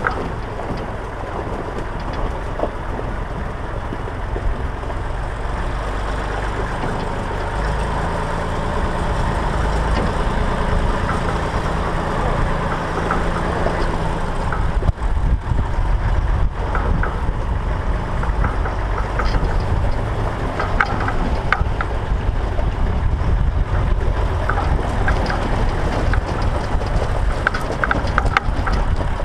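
Massey Ferguson 135 tractor engine running steadily. It gets louder about halfway through, with light rattling clatter on top.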